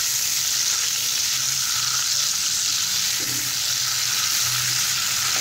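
A sauce of hot oil, chili flakes, chili sauce, soy sauce and vinegar sizzling and bubbling steadily in a non-stick kadai as it is stirred with a silicone spatula.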